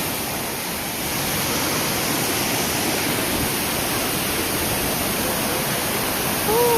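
Steady rushing of a waterfall, an even hiss with no break. A short call from a voice rises and falls just before the end.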